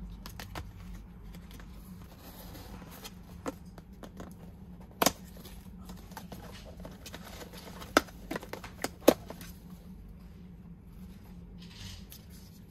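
Handling noise from unboxing a cardboard and paper package: cardboard flaps and paper inserts rustling and scraping, with a few sharp clicks and taps. The loudest is about five seconds in, and a cluster of them comes around eight to nine seconds.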